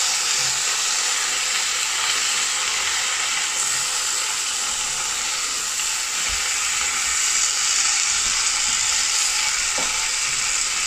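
Chicken shashlik skewers sizzling steadily in a hot ridged grill pan, with a couple of light knocks near the end.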